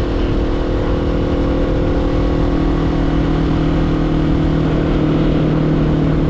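Honda CBR500R parallel-twin engine through a LeoVince LV10 slip-on exhaust, running at a steady cruising pitch, with wind rush on the microphone.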